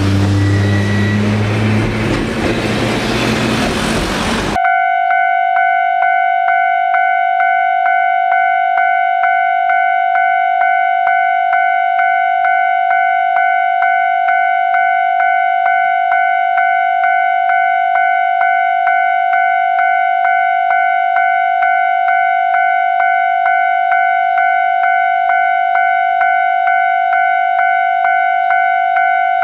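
Street traffic noise for the first four and a half seconds as a tram passes. Then, after a sudden cut, a Japanese railway level-crossing alarm rings steadily: one pitched ding repeated a little under twice a second.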